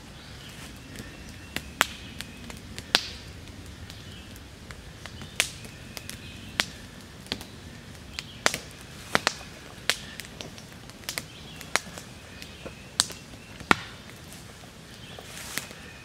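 Split cedar campfire crackling, with sharp irregular pops about once a second over a low steady rush of flame.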